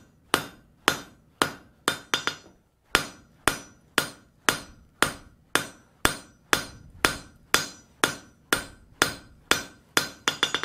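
Hand hammer striking a hot steel bar on an anvil in steady blows, about two a second, each with a short metallic ring: drawing out the bar to half its thickness. A brief pause comes about two and a half seconds in, and a quick run of lighter taps at the end.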